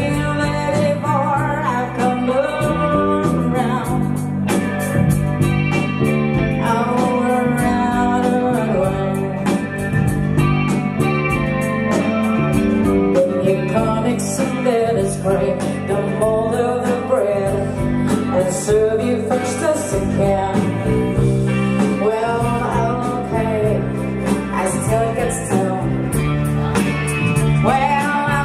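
Live band playing: a woman singing into a microphone over electric guitar, bass guitar and drums with a steady cymbal beat.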